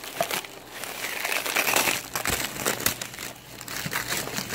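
Hands crinkling and crumpling clear plastic wrap and packing paper while pulling them off a shipped parcel, a dense run of crackles.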